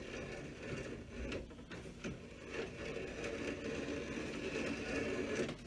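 A cobbler's 5-in-1 cutter trimming the excess leather off a new sole: faint scrapes and clicks at irregular moments over a steady machine hum.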